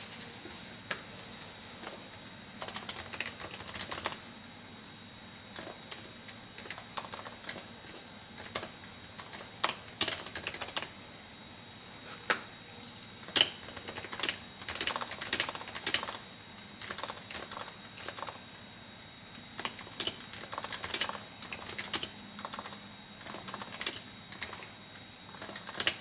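Typing on a PFU HHKB Pro2 keyboard's Topre switches, lubed and fitted with o-rings, giving a damped thock. The keystrokes come in irregular bursts with short pauses between them.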